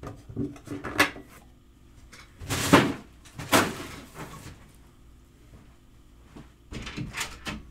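A series of knocks and clatters from hard objects being handled and set down, the loudest pair between about two and a half and four seconds in, then a quieter gap before another short cluster of knocks near the end.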